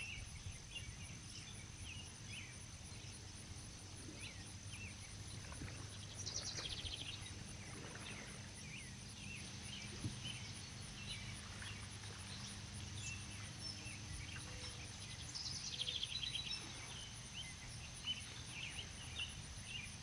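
Outdoor pond-side ambience: small birds chirping throughout, with a descending trill about six seconds in and another near the end. Under it run a steady high insect drone and a faint low rumble.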